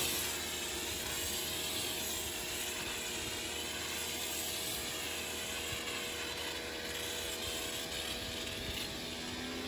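Greenworks electric pressure washer running with its foam cannon spraying snow foam onto a car: a steady motor-and-pump hum under a hiss of spray. The hum drops in pitch near the end.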